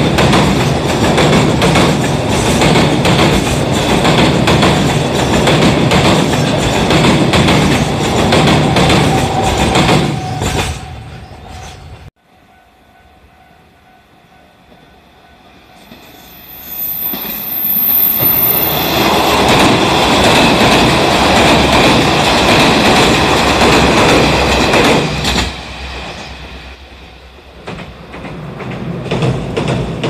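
A long container freight train rolling past, its wagon wheels clattering steadily over the rail joints, cut off suddenly about twelve seconds in. Then a KiHa 47 diesel railcar approaches and runs past, its sound building up and then fading.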